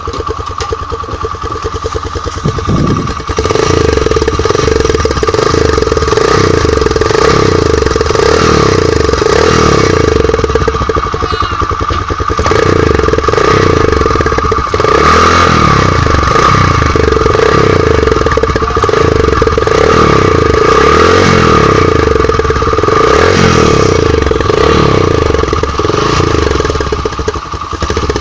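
Motorcycle engine running loudly, with two steady whining tones over a low pulsing that swells about once a second, typical of a motorbike sound effect made by a silencer hack.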